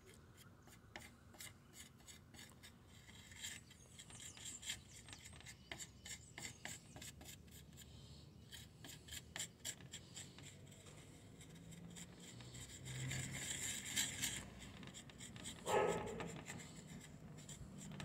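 Wooden stick stirring and scraping a two-part aluminium-powder cold-weld epoxy putty on a hard surface: faint scratching strokes in irregular quick succession, with one brief louder sound about three-quarters of the way through.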